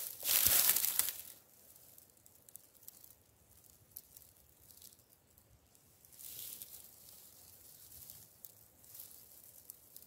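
Rustling and crackling of dry grass and twigs underfoot: a loud rustle in the first second, another about six seconds in, and faint scattered crackles in between.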